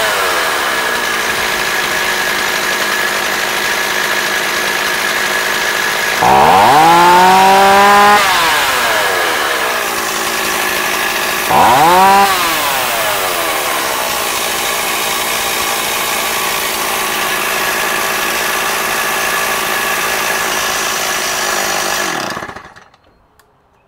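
Stihl 026 chainsaw's two-stroke engine idling steadily, revved up hard twice, once for about two seconds and once as a short blip, the pitch rising quickly and falling back to idle each time. Near the end the engine is switched off and the sound stops suddenly.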